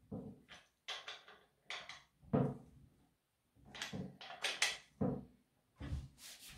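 Husqvarna chainsaw chain pulled by hand around the guide bar, its links rattling and scraping in a series of short, irregular strokes, the loudest about two seconds in. This is the hand check of chain tension: the chain sits against the bar but can still be drawn round it.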